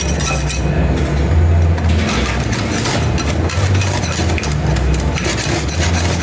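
Metal spatulas tapping and scraping on a stainless steel ice cream cold plate, chopping and spreading the freezing mix in rapid, irregular clicks, over a steady low hum.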